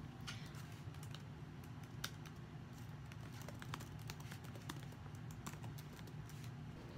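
Faint, irregular ticks and taps of a dual-tip marker used as a highlighter on a sheet of paper, over a low steady hum.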